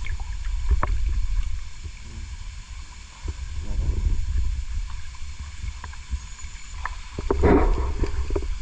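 River water sloshing and lapping right at a camera held at the water's surface, with an uneven low rumble and small splashes, swelling louder near the end.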